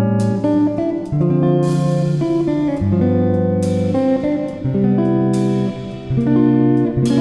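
Background music: guitar playing plucked and strummed chords, the chords changing about once a second.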